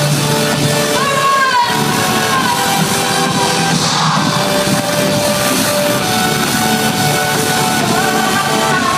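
Live trance music played loud over a hall PA: sustained synth chords with a woman singing gliding notes, and cheering from the crowd about halfway through.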